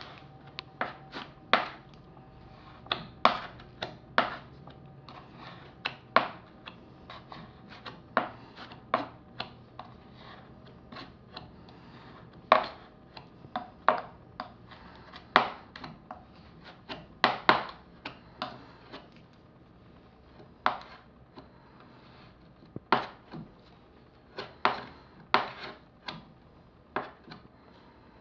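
Irregular sharp clicks and taps, about one or two a second, from a hand tool knocking against glass and lead came as putty is worked in under the came flanges of a stained glass panel.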